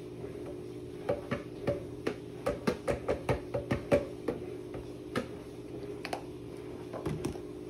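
Plastic ground-cumin shaker shaken over a blender jar: a run of sharp taps, about three a second, for about three seconds, then a few scattered taps.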